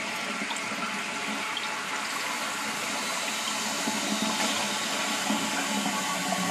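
Vintage toilet tank filling from its supply: a steady rush of running water.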